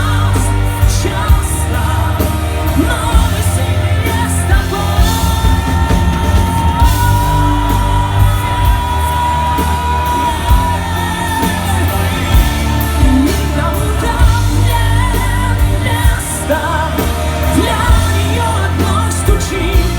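A band playing a pop-rock song with a singer, heavy bass and steady drums. About a quarter of the way in, the singer holds one long note for roughly five seconds.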